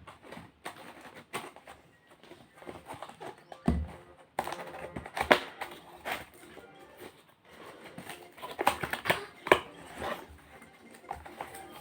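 Irregular clicks, taps and crinkles from an unboxed order and its packaging being handled by hand. The loudest cluster comes about five to ten seconds in.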